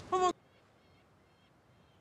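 A brief voice sound that cuts off sharply about a third of a second in, followed by faint outdoor background with a few faint, high bird calls.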